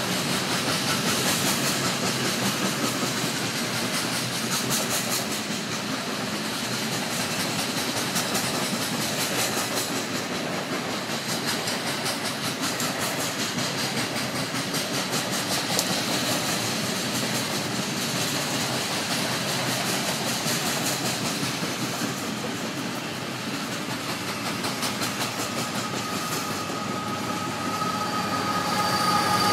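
Coal hopper cars of a Union Pacific freight train rolling past: a steady noise of steel wheels on rail with rapid clicking over the rail joints. Near the end a high squeal from the wheels comes in and the sound grows louder.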